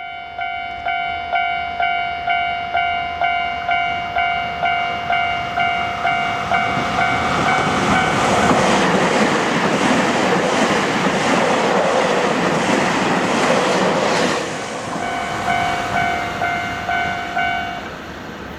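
Japanese level-crossing warning bell ringing at about two strokes a second. About eight seconds in, a train passes and its running noise drowns out the bell for some six seconds. The bell then rings on and stops near the end.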